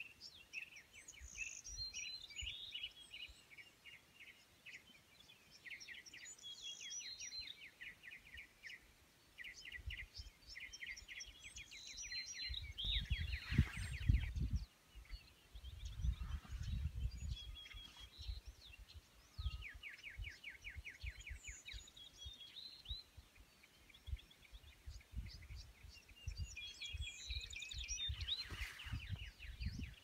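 Several wild birds singing over one another in repeated rapid trills and chirps. Gusts of wind buffet the microphone now and then, the strongest about halfway through.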